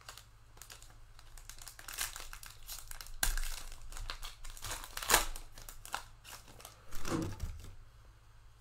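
Foil trading-card pack wrapper crinkling and tearing as it is ripped open by hand, with crackles throughout and louder rips about three, five and seven seconds in.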